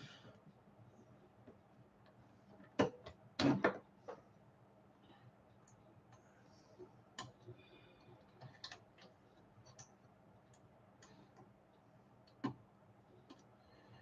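Scattered light clicks and knocks as hands handle the opened-up Epson TM-T88III receipt printer's plastic and metal parts, the loudest pair about three seconds in, with stretches of near silence between.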